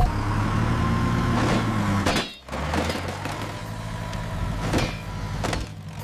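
Animated bulldozer's engine sound effect: a steady low rumble that breaks off briefly about two seconds in and carries on at a lower pitch, with a few short sweeping sounds over it.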